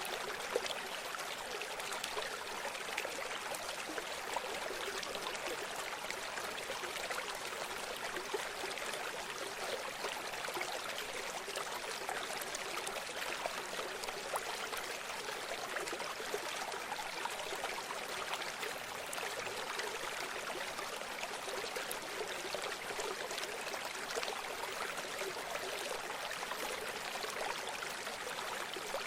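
River water flowing and splashing over rocks, a steady rushing babble without pauses.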